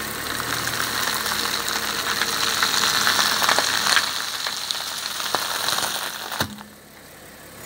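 Car engine running slowly as a tyre rolls over a banana stem and crushes it, with a crackling hiss and scattered snaps from the stem. A sharp snap comes about six and a half seconds in, after which it goes quieter.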